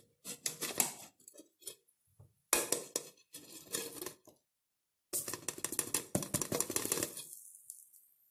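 Stainless steel frying pan clinking and scraping against a ceramic plate as it is turned over onto the plate to flip a frittata, in three bursts of rattling clatter, the last and longest ending about two thirds of the way through.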